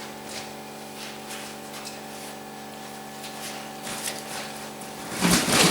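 Used tyres being thrown down onto the plastic-sheeted silage clamp: scattered dull thuds, then a much louder clattering thump near the end. A steady engine hum, typical of a tractor left idling, runs under it.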